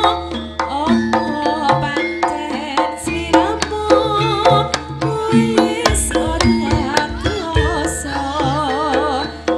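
Live Javanese jaranan music, played loud and continuously: hand-drum strokes keep a steady beat under a wavering melody line and stepped pitched notes, over a deep sustained low tone.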